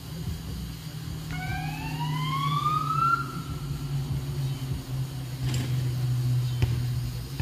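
Steady low motor hum of a power wire brush scouring off dirt. About a second in, a rising whistle-like glide lasts about two seconds, and a few sharp clicks come near the end.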